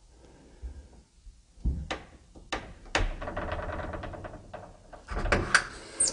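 Round metal doorknob on a wooden door being turned and worked: a series of sharp latch clicks, with a rattle of the knob in its fitting about three seconds in.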